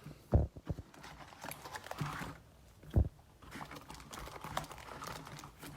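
Foil card packs being pulled out of a cardboard hobby box by hand: crinkly rustling of the wrappers with a few light knocks, and one louder thump about three seconds in as packs or the box hit the table.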